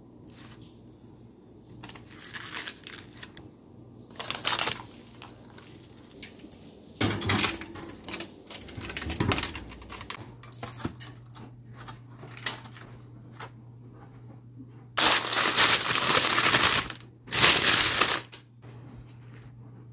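Baking parchment paper crinkling and rustling in several bursts; the two loudest and longest come near the end. A low steady hum comes in about halfway through.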